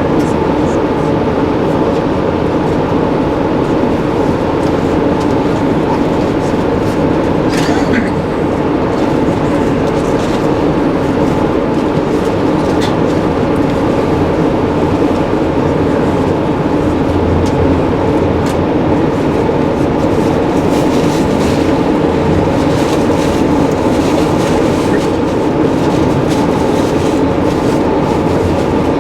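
Passenger train rolling along the track: a steady rumble of wheels on the rails with a few faint clicks.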